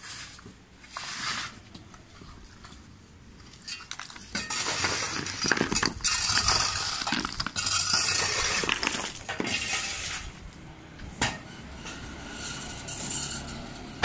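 Bricks and broken brick rubble clinking and clattering as they are handled and dropped, with a few separate knocks early on, a long dense stretch of clattering in the middle, and a sharp knock near the end.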